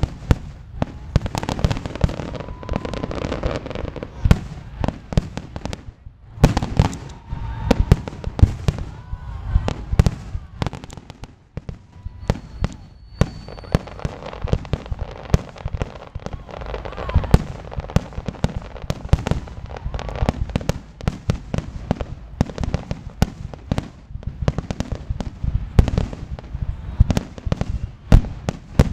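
Aerial firework shells bursting in rapid succession: a dense run of booms and crackling, with two brief lulls, about six seconds in and around eleven to twelve seconds.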